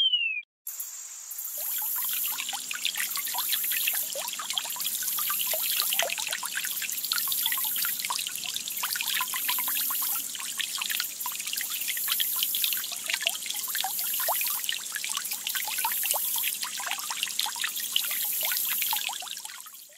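Thin stream of water from a stone fountain statue splashing steadily into a pond, fading out near the end. Right at the start, a short chirp sound effect that rises and falls in pitch.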